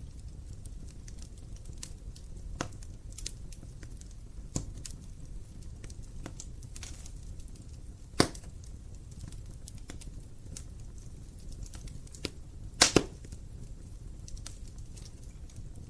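Wood fire burning in a fireplace: the logs crackle with scattered small snaps over a low, steady rush of flame, and sharp louder pops about 8 seconds in and twice in quick succession about 13 seconds in.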